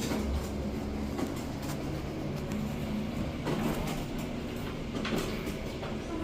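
A steady low machine hum, with a few light knocks and clatters scattered through it.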